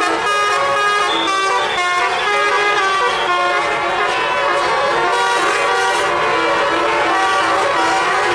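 Tour bus's telolet horn playing a tune: several horn tones sounding together, stepping from note to note every fraction of a second without a break.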